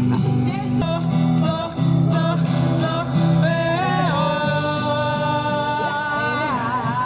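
A song plays: a singing voice over guitar and a steady low accompaniment, with one long held note from about four seconds in to near the end.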